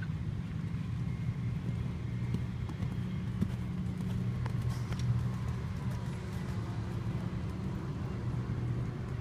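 A steady low rumble, with the faint, muffled hoofbeats of a horse cantering on sand arena footing.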